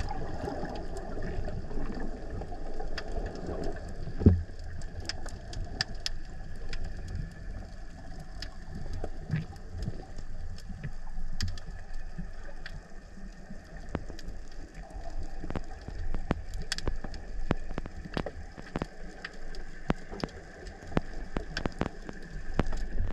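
Underwater ambience from a spearfisher's camera housing: a low water rumble with scattered sharp clicks and crackles, and one louder knock about four seconds in.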